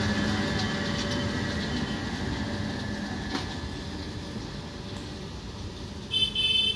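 Electric multiple unit local train passing close by: wheels rolling on the rails with a few sharp clacks and a steady hum, fading as the last coach goes past. About six seconds in, a loud, short, high-pitched electronic beeping starts.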